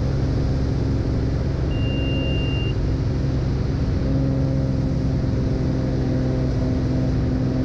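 Cessna Turbo 210's turbocharged six-cylinder engine and propeller running steadily at climb power, heard inside the cabin. A brief high beep sounds about two seconds in.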